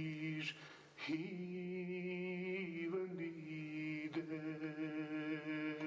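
A man singing a slow unaccompanied melody in long held notes with vibrato, breaking off briefly about half a second in and coming back in about a second in, then stepping to a new note around three seconds in.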